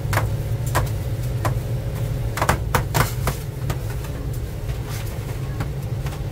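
Knife chopping stacked slices of bologna on a stainless steel counter: irregular sharp knocks of the blade hitting the steel, a few quick ones in a row around the middle, over a steady low hum.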